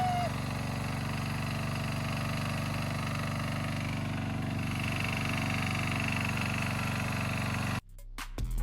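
Greenfield ride-on mower engine idling steadily just after starting. It cuts off suddenly near the end and music with an electronic beat comes in.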